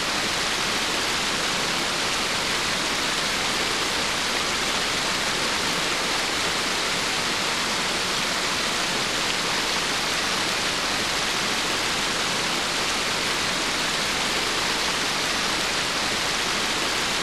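Small stream of orange-stained water pouring out of an opening in a bank and splashing down over rocks: a steady rushing hiss.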